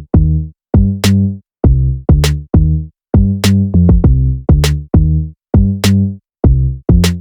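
Electronic background music with a drum-machine beat: sharp snare or hat hits over deep pitched bass notes in a steady rhythm.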